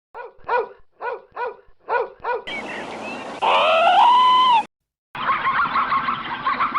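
A string of separate animal recordings, cut together: first about seven short, quick yips that sound like a dog's, then one long wavering call from another animal, then, after a brief gap, a flock of birds chattering.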